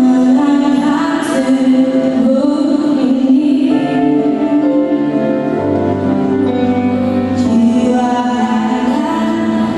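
Music with singing: slow melody of long held notes over a steady accompaniment.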